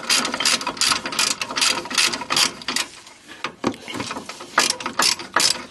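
Ratchet wrench clicking quickly and evenly, about four to five clicks a second, as a bolt on the brake caliper mount is turned. It pauses briefly about three seconds in, then starts again.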